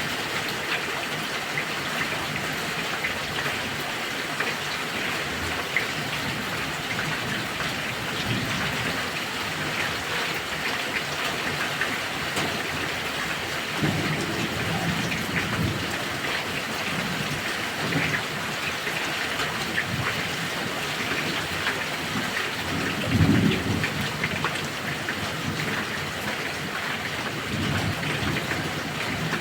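Heavy rain pouring steadily, with low rolls of thunder about halfway through and a louder rumble near the end.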